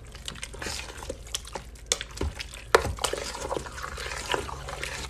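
A spoon stirring thick, chunky tomato and vegetable sauce in a stainless steel pot: wet sloshing of the sauce with irregular clicks and scrapes of the spoon against the pot.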